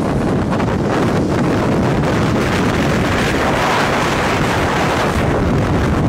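Strong tornado wind rushing and buffeting the microphone, a steady noise that swells a little around the middle.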